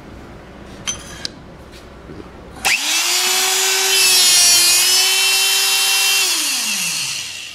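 Electric-over-hydraulic hole punch's pump motor starting about two and a half seconds in and running with a steady whine as it drives the punch through roughly 1/8-inch steel, then winding down with falling pitch near the end.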